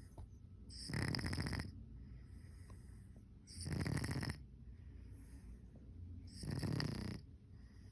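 Domestic cat snoring in deep sleep: three loud snoring breaths, about three seconds apart, with softer breathing between them.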